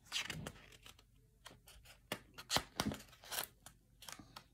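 Hands handling an open hardcover picture book: quiet, scattered paper rustles, taps and clicks of fingers against the pages and cover.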